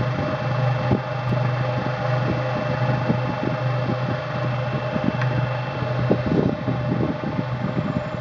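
Stephan UM25 cutter running at speed: a steady electric-motor hum and whirr of the spinning cutter, with frequent irregular light clicks and rattles.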